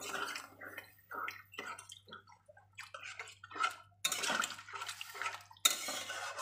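Metal spatula stirring a freshly watered curry in a metal kadai, in irregular strokes of scraping against the pan and wet sloshing of the liquid.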